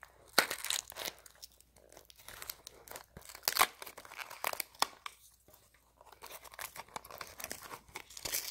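A small plastic-wrapped cardboard toy box being torn open by hand, with irregular crinkling and ripping of the wrapping.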